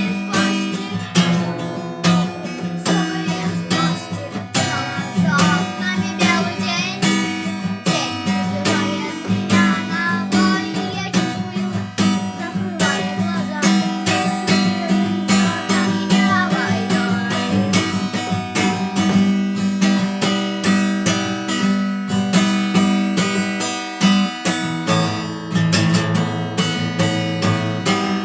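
Acoustic guitar strummed in a steady rhythm, playing a song's chords.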